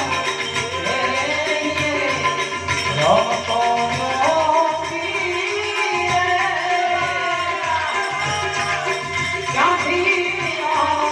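Santvani, Gujarati devotional folk singing: a voice sings a bhajan melody with gliding, ornamented phrases over steady rhythmic hand-percussion accompaniment.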